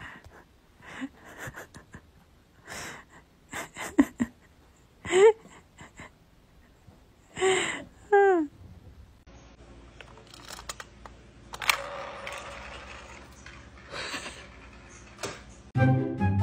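A cat giving a few short, squeaky meows amid clicks and rustling of bedding, with a longer breathy hiss-like noise later on. Light music comes in near the end.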